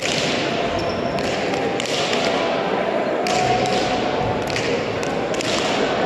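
Frontball pelota ball struck by hand and smacking the front wall of a frontón, several sharp knocks at irregular intervals that ring on in the hall, over a steady background din.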